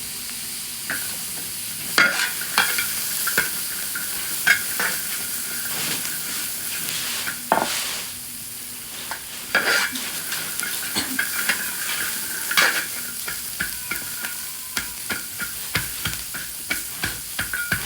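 Green chili peppers sizzling as they fry in a wok, with a spatula stirring and scraping them in many short strokes.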